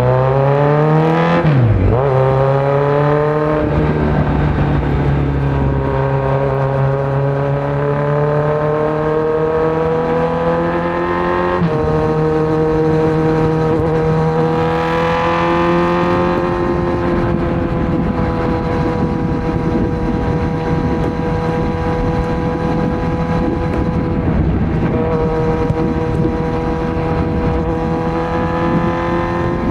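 2018 Kawasaki Z900's inline-four engine running through a Yoshimura muffler and Delkevic headers with no dB killer, under way on the road. The revs climb and then drop sharply about two seconds in, hold steady, jump up abruptly near the middle, and then settle into a steady cruise.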